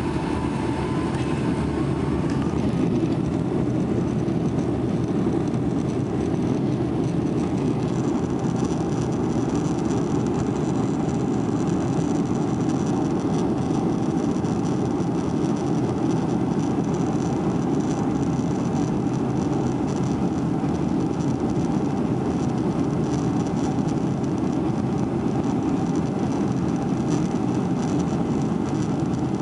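Steady rumble and hiss inside the cabin of a Boeing 757-300 taxiing with its engines at idle, heard from a window seat over the wing.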